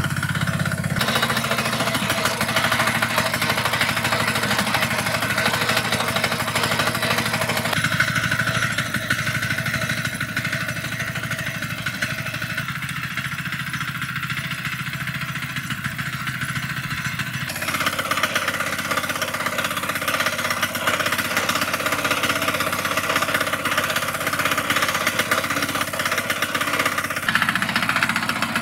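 Six-horsepower single-cylinder diesel engine of a Kentavr MB 2060D walk-behind tractor running steadily, with a rapid chugging beat, while the tractor is driven along. Its tone shifts abruptly a few times, and it is a little quieter through the middle stretch.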